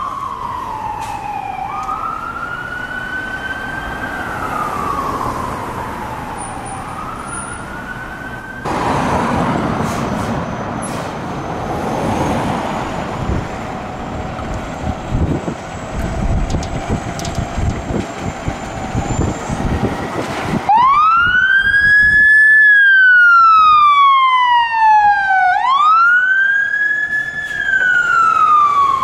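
Fire engine sirens wailing in slow rise-and-fall sweeps. Partway through, a fire engine's diesel engine rumbles as it pulls out. The siren then comes on loud and close, sweeping up quickly and falling slowly about every five seconds.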